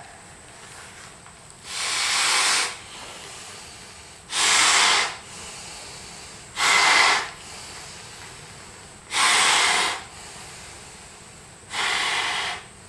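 A person's heavy breathing during a steep uphill hike: five loud, hissing exhales close to the microphone, evenly spaced about two and a half seconds apart.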